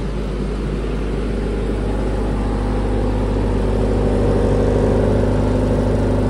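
Doosan 30 kVA diesel generator running steadily under electrical load from an inductive load bank, with the engine note growing louder about halfway through.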